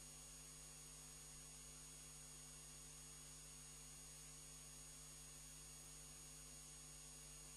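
Near silence: a faint, steady electrical hum with a thin high whine and hiss, and no tool sounds.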